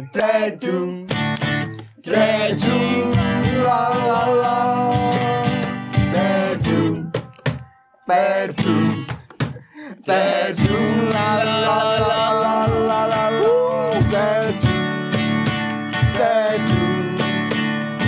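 Acoustic guitar strummed with several men singing together. The music breaks off for about a second a little before the middle, then picks up again.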